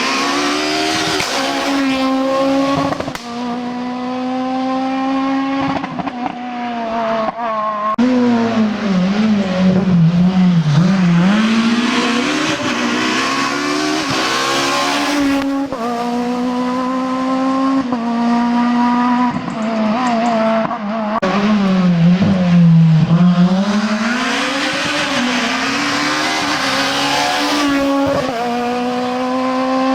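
Rally car engines at full throttle on a special stage, revving up through quick gear changes, dropping in pitch twice under braking and downshifts for corners, then accelerating hard away.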